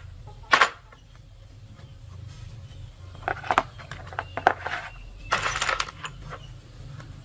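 Small metal parts clinking on a hard surface: one sharp clink about half a second in, then a scatter of clinks and rattles from about three seconds on, over a faint low hum.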